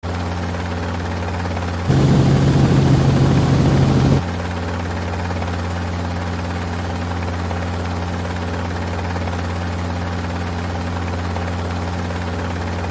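Robinson R44 helicopter in flight, heard from inside the cabin: a steady low drone of the main rotor and the Lycoming six-cylinder piston engine. It is louder and rougher for about two seconds a couple of seconds in, then settles back to the same even drone.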